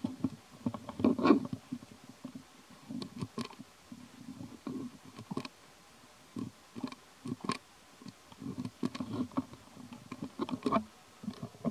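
Young macaque peeling and chewing lotus fruit: irregular crunching, clicking and husk rustling in clusters, busiest about a second in and again near the end.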